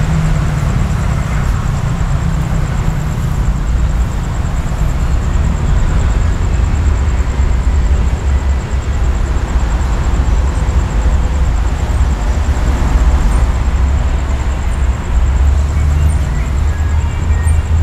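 Express diesel railcar set's engines running with a steady low rumble as the train rolls slowly closer, the rumble growing louder near the end.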